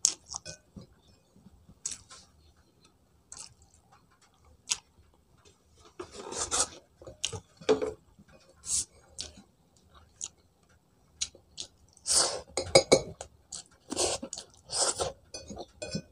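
A person eating with her fingers: chewing and mouth sounds, with fingers scraping and pressing food against a plate, in irregular short bursts that are busiest about six seconds in and again from about twelve seconds.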